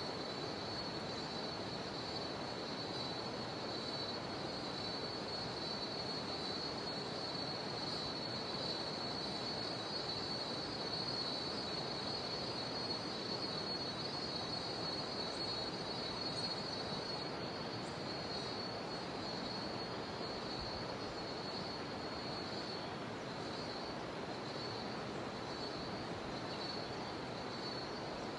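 Jungle river water rushing steadily, under a continuous high-pitched buzz of cicadas that turns into a pulsing buzz near the end.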